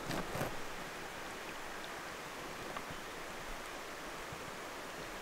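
Steady outdoor background hiss with no distinct source, after a brief rustle in the first half second.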